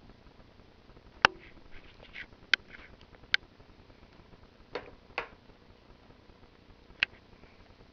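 A handful of sharp clicks and softer knocks with light rustling between them: handling noise as a plate of chopped greens and fruit is picked up and the food is picked over by hand.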